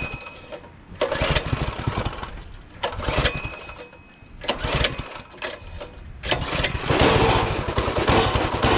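Predator 212cc single-cylinder four-stroke go-kart engine being started for the first time: a few short cranking attempts, then it catches about six seconds in and keeps running with rapid, uneven firing.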